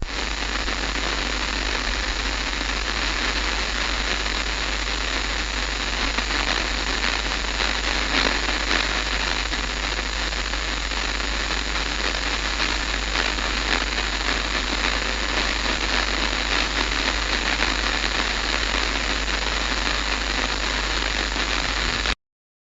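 Television static: a steady loud hiss of white-noise fuzz with a low hum beneath it, cutting off suddenly near the end.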